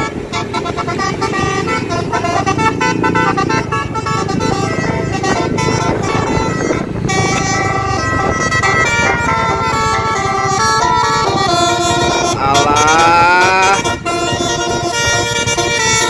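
Bus "telolet" basuri multi-tone musical horn playing quick melodies of several pitches, with a rising sweep about three-quarters of the way through.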